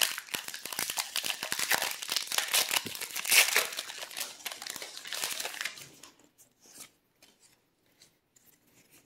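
Foil Pokémon booster pack wrapper crinkling and being torn open by hand, a dense crackling rustle with its loudest rip a little past three seconds in. The noise stops about six seconds in, leaving only a few faint ticks.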